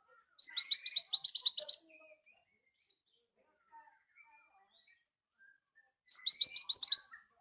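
Scarlet minivet (sepah raja) singing: two quick phrases of rapid, high, sharp repeated notes, the first of about ten notes and the second of about seven, some five seconds apart.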